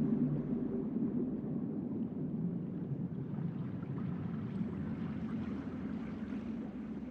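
A held note of the Celtic background music dies away about a second in, leaving a steady low rushing ambience bed.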